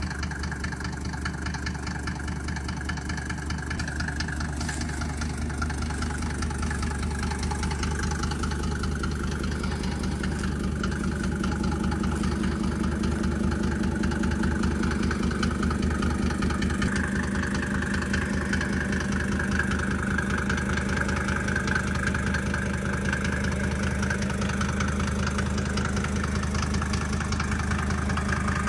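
1992 Mercedes-Benz 300D turbo diesel engine idling steadily, growing gradually louder.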